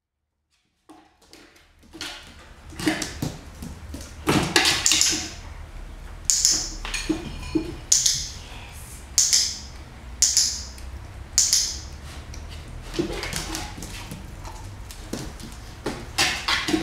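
Short, sharp training marker sounds from a dog-training session, repeated every second or two over a low steady hum, after a silent first second.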